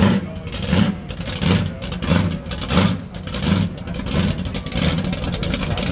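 Lifted Chevrolet pickup's engine running as the truck creeps along at low speed, its sound swelling and fading in a steady rhythm about one and a half times a second.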